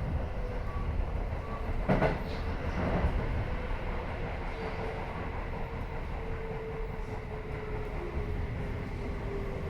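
Keio 7000 series commuter electric train running on the line: a steady rumble of wheels on rail, with clacks over rail joints about two and three seconds in and a faint steady motor whine that sinks a little in pitch near the end.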